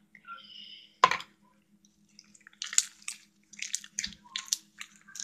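Fluffy shaving-cream slime being squeezed and stretched by hand: a sharp wet pop about a second in, then a quick run of sticky crackling and squelching bursts from air pockets in the slime.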